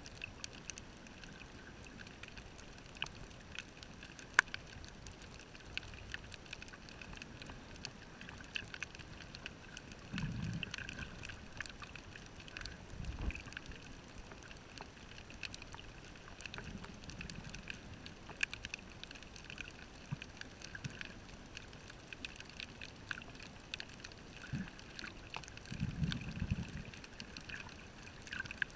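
Underwater ambience picked up by a camera in its waterproof housing on a reef: a steady muffled hiss scattered with sharp clicks and crackles. A few low, muffled rumbles of about a second each come and go, the loudest near the end.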